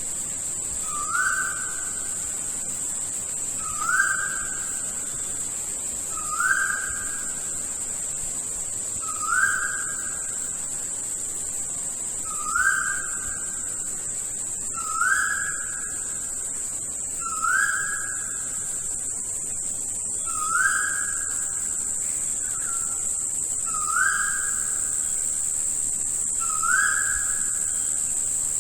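A bird giving one whistled note over and over, each call rising quickly and then held for about a second, repeated every two and a half to three seconds. Under it is a steady high-pitched drone of insects.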